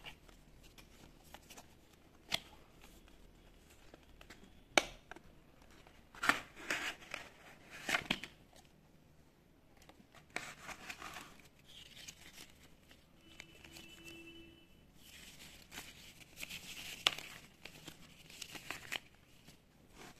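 Cardboard box and paper packaging being opened and handled: sharp clicks and scrapes of the box, then bursts of rustling and crinkling as the inner tray and wrappers come out.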